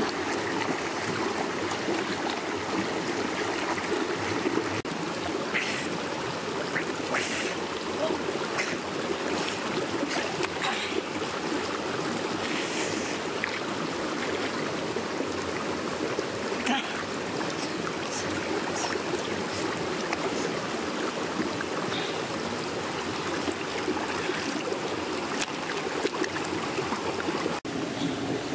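Rocky stream flowing steadily, with scattered small splashes and drips of water as a person wades and reaches into it.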